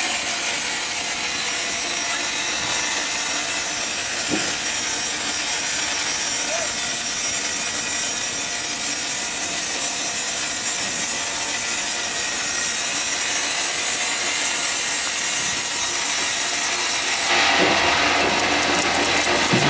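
Sawing machine cutting through ironwood, a continuous, steady, high-pitched hiss of the blade in dense hardwood. It turns rougher and more rattly about three seconds before the end.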